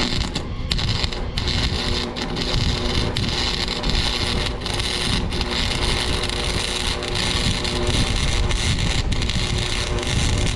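MIG (wire-feed) welder arc crackling and sizzling steadily as a weld bead is laid, with a few brief breaks where the arc stops for an instant.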